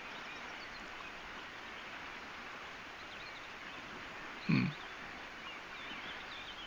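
A man's short, low closed-mouth hum about four and a half seconds in, over steady faint outdoor background noise.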